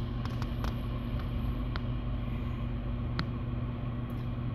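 Steady low hum inside a car's cabin, its engine running while parked, with a few light clicks.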